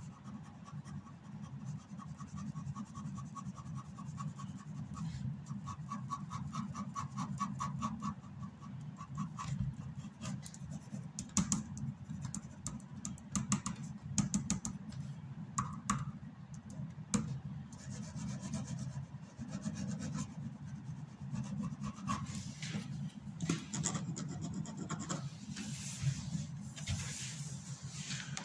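Pen scratching on paper in quick repeated hatching strokes for the first several seconds, then scattered rubbing and scratching of hand and paper, over a low steady hum.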